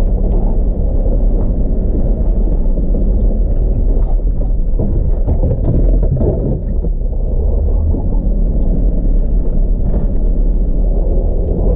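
Jeep Wrangler driving slowly along a snowy trail: a steady, loud low rumble of engine and tyres, with little high-pitched sound in it.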